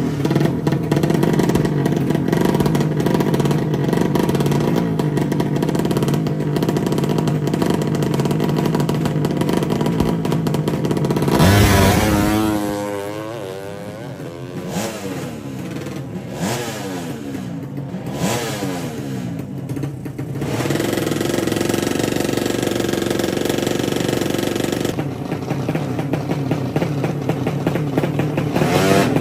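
200 cc drag bike engine held at high revs on the start line, then launching with a loud surge about eleven seconds in. Its pitch climbs and drops again and again as it shifts up through the gears and fades down the strip. Another drag bike engine revs steadily in the second half, growing louder near the end.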